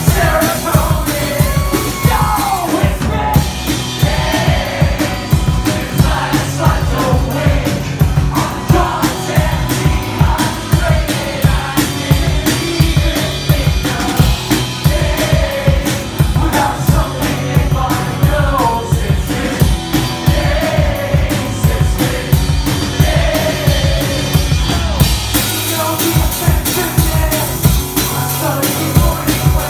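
Live rock song played on a strummed acoustic guitar and a full drum kit with a steady kick-drum beat, under a man's singing. Cymbals ring out in the first few seconds and again for the last few seconds.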